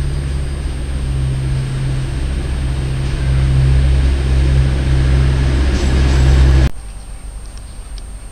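Diesel train engines running with a steady low drone that grows louder, then cuts off suddenly about two-thirds of the way through, leaving quiet station background.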